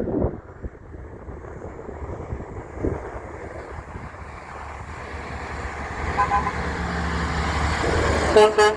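A big truck approaching with a rising rumble, giving a short toot of its horn about six seconds in, then sounding its horn in short repeated blasts near the end.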